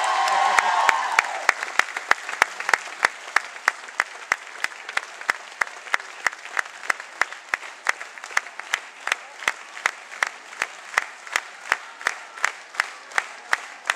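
Theatre crowd clapping in unison, a steady rhythm of about three claps a second. Voices are shouting or singing over it at first and die away after about a second.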